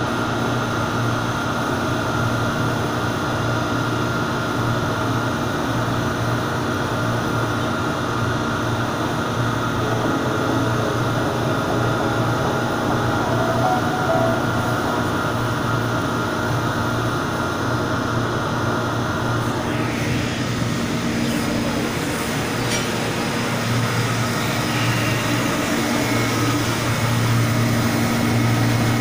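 Steady drone of drilling rig machinery heard inside the driller's control cabin, with a low hum; it grows a little brighter about two-thirds of the way through.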